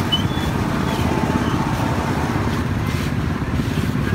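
Steady low rumble of outdoor street noise, most likely traffic and motorbikes, at an even level, with a brief high chirp right at the start.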